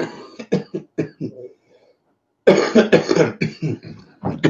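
A man coughing: a run of short coughs at the start, then a louder coughing fit about two and a half seconds in.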